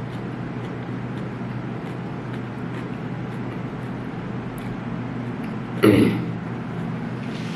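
Steady low background hum, with a brief, loud sound from a person's voice about six seconds in.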